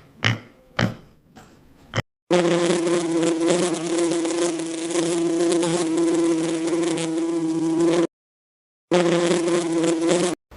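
A flying insect buzzing steadily, one even droning tone with overtones; it breaks off for about a second near the end and comes back. The first two seconds hold a few short grunts, about two a second.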